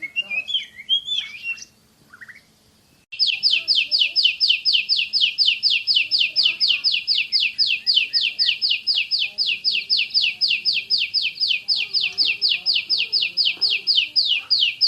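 Oriental magpie-robin (kacer) singing: a few varied chirps, then from about three seconds in a loud, fast, even series of short downward-sweeping whistled notes, about five a second, the rapid-fire 'tembakan' (shooting) song prized by Indonesian bird keepers.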